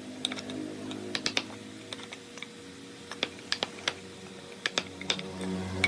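Wooden mallet striking a wood chisel to cut a mortise in a timber rail: sharp, irregular taps, often two or three in quick succession, with short pauses between groups.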